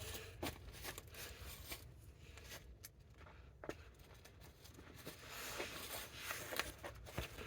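Faint rustling of nylon pack fabric with a few light clicks and taps, as a waist pack and its straps are handled.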